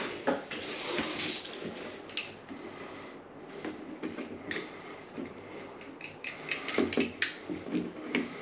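Pliers working the end of a grey flat electrical cable: scattered clicks and snips of the tool and the rub of the plastic sheath being gripped and pulled, busiest near the start and again near the end.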